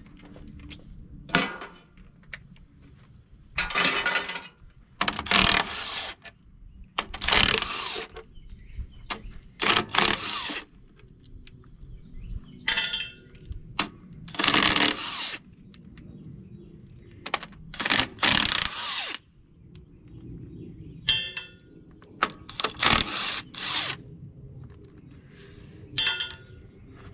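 Hand tools working the bolts on a Cat No. 29 cable control unit: about a dozen short, rasping strokes at irregular intervals, with metallic clicks and clinks between them.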